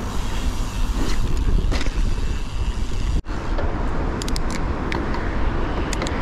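Street traffic noise with a steady low rumble on the GoPro's microphone, cut by a brief dropout about three seconds in, with a few sharp clicks in the second half.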